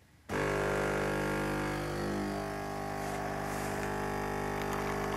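Philips EP1220-series bean-to-cup espresso machine's water pump starting suddenly and running with a steady hum while it pushes water through the coffee puck to brew an espresso.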